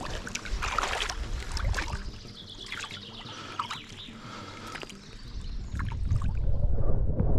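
Shallow river water splashing and trickling around a landing net as a trout is handled in the shallows. From about five seconds in, a low rumble of water against a camera held at the surface takes over as the loudest sound.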